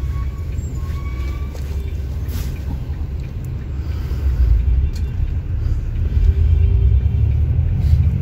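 Low, steady rumble of a bus's engine and running gear heard from inside the passenger cabin, growing louder about halfway through.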